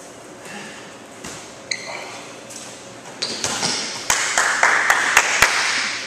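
A medicine ball landing and bouncing on a concrete gym floor, a quick run of loud thuds in the second half, with a sharp squeak before them and players shouting.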